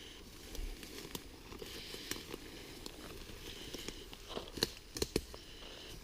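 Footsteps through forest brush and leaf litter, with twigs and undergrowth crackling and snapping in scattered sharp clicks, a quick cluster of them about four and a half to five seconds in.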